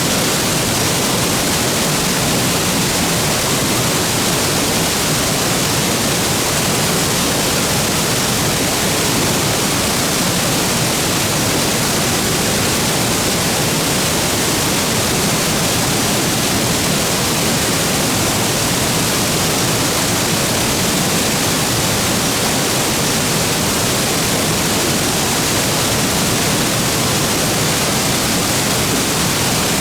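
Shokei Falls waterfall pouring steadily: a loud, even rush of falling water with no breaks or changes.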